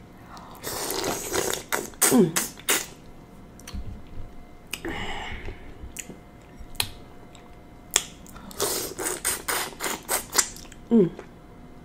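Close-up eating sounds: biting and chewing sauce-coated lobster tail meat and a large prawn, with a run of wet smacks and sharp mouth clicks in two clusters.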